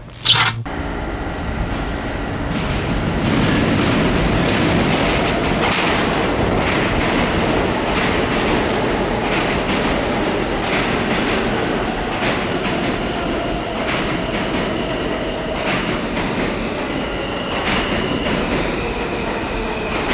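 New York City subway train running past at speed close by: a steady loud rumble of wheels on rails that builds over the first few seconds, with sharp clacks about once a second and a faint high whine near the end. A short, loud burst of noise comes just after the start.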